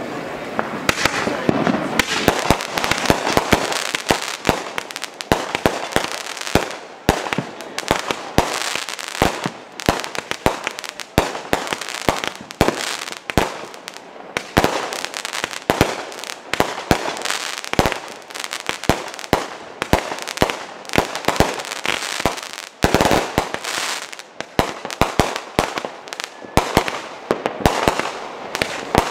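Aerial fireworks firing and bursting in rapid succession: a dense string of bangs, several a second, over a constant hissing crackle. The bangs come thick from about two seconds in.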